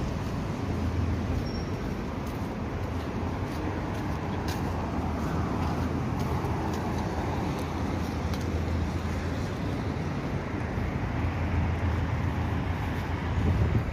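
Steady outdoor street ambience: a low rumble under a faint hiss, with a few light ticks.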